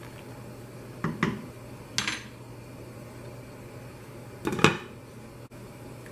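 Kitchen utensils knocking against a large metal stockpot, a couple of sharp clinks about one and two seconds in. Then a glass pot lid is set onto the rim near the end with a double clatter, the loudest sound.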